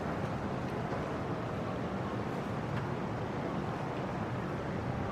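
Steady low rumbling outdoor ambience, with no distinct events standing out.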